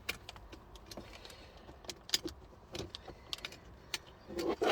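Scattered small clicks and taps of plastic parts and a wiring connector being handled while the glovebox lamp's wire is fitted, with a louder cluster of knocks near the end.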